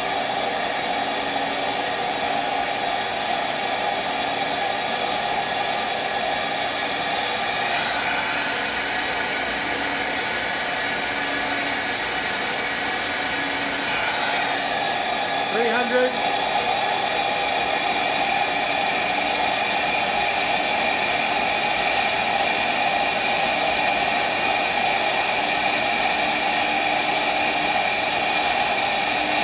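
A flow bench runs steadily, pulling air through the intake port of a 7.3 IDI diesel cylinder head at about 28 inches of depression. It makes a continuous rushing of air and motor noise. The noise grows a little louder about halfway through, as the valve sits at higher lift.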